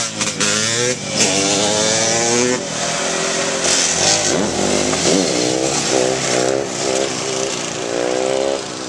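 Dirt bike and sport quad engines revving hard during wheelies, the pitch repeatedly climbing and falling in quick swells. The engine sound drops away just before the end.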